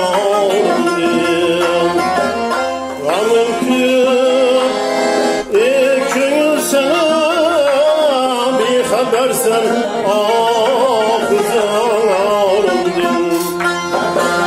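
A man singing a wavering, ornamented folk melody while strumming a dutar, a long-necked lute.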